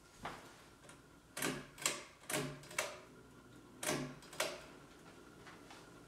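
Hampton Bay Metarie II 24-inch ceiling fan running with a faint steady hum and a series of sharp ticks, roughly two a second in two short runs through the middle. This is the slight ticking noise that the owner lists as the fan's flaw.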